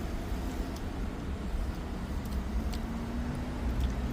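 Steady low background rumble with a faint hum and a few small clicks.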